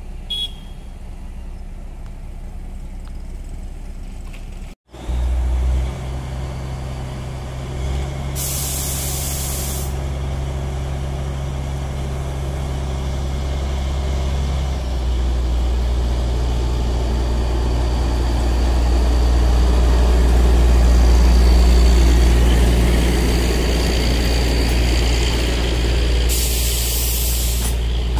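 Narrow-gauge diesel locomotive running with a steady low engine drone as it hauls its coaches past, growing louder toward the middle. Two bursts of hissing air, about eight seconds in and again near the end.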